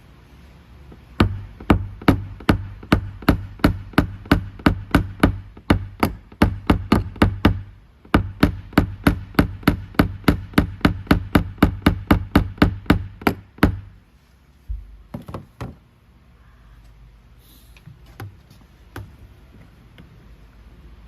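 Small dent-repair hammer tapping a knockdown punch against an Audi e-tron door panel: a steady run of about three to four light strikes a second with a brief pause midway, then a few last taps. This is the tap-down stage of paintless dent repair, knocking down the high spots around the dent.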